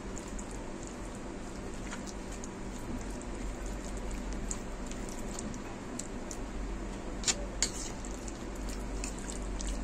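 Wet squelching and stirring of chicken pieces being mixed through a thick yogurt-and-cream marinade in a bowl, with small clicks of the utensil and two sharper ticks about seven seconds in, over a low steady hum.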